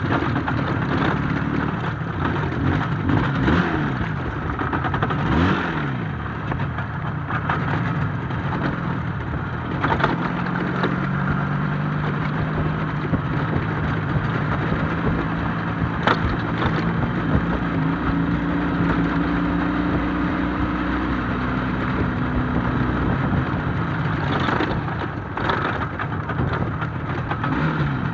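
IZh Jupiter-5 motorcycle's two-cylinder two-stroke engine running. Its pitch rises and falls with the throttle a few times in the first six seconds, then holds fairly steady at a cruising speed.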